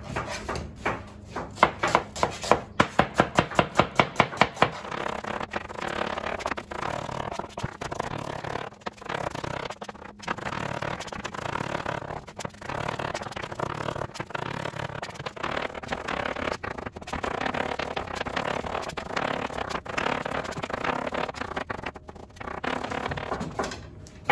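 Chef's knife dicing onions on a wooden chopping board: a fast, even run of knife strikes, about five a second and loudest in the first few seconds, then quicker, softer continuous chopping with a couple of brief pauses.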